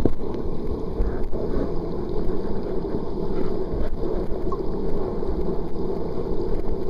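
Steady rush of water at a waterfall, heavy in the low end, with wind rumbling on the microphone.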